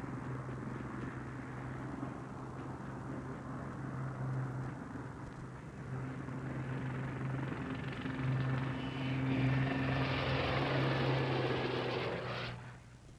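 Westland Lynx helicopter in low flight: a steady rotor and engine hum that grows louder as it closes for a near pass, then cuts off abruptly near the end.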